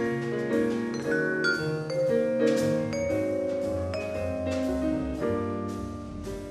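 Vibraphone played with four yarn mallets: a jazz ballad, its struck chords and melody notes ringing on into one another.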